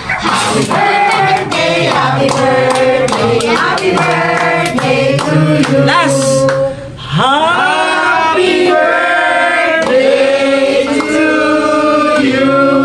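Several voices singing together, with a rhythm of claps through the first half; after a short break near the middle the singing resumes in longer held notes.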